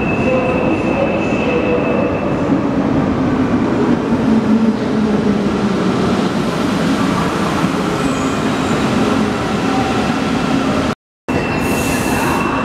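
CAF NS-07 rubber-tyred metro trains moving through the station, one pulling in as another pulls out: steady running noise with a motor whine that falls slowly in pitch. The audio cuts out for a moment about eleven seconds in.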